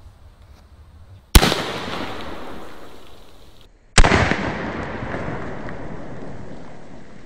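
Zeus .72-calibre (12 gauge) big-bore air shotgun firing a shot load at a row of soda cans: a sharp report about a second and a half in, then the same shot heard again from beside the targets about four seconds in as the cans burst. Each report trails off over two to three seconds.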